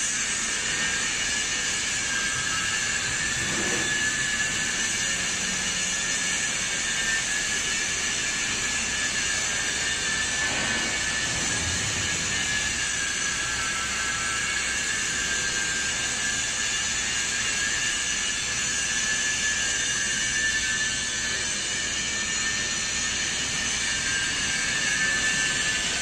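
Hydraulic power unit of a 160-ton scrap metal baler running: the electric motor and pump give a steady high whine over a hiss.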